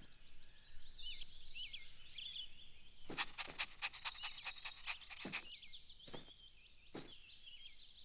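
Birds chirping and twittering in a garden ambience, with a series of irregular sharp taps starting about three seconds in.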